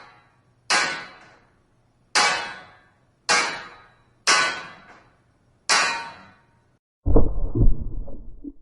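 A metal pipe struck five times, each a clang ringing off over about half a second. About seven seconds in comes a low, muffled underwater explosion, rumbling for about a second and a half.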